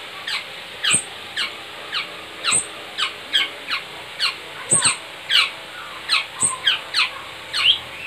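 Juvenile black-naped orioles calling: short, squeaky chirps that slide down in pitch, repeated about two or three times a second.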